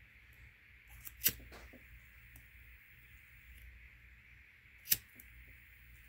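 Disposable pocket lighter being struck: two sharp clicks about three and a half seconds apart, the later strike catching a flame.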